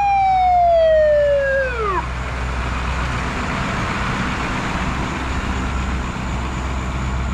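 Fire engine siren winding down in a long falling wail that drops away steeply and stops about two seconds in. After it comes the truck's steady low engine rumble as it passes close by.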